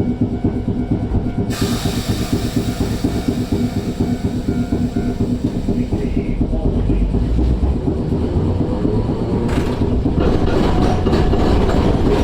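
Iyotetsu streetcar heard from on board as it runs: a steady motor hum and rumble that grows louder, with a hiss starting about a second and a half in. From about ten seconds in, a quick run of wheel clacks over rail joints.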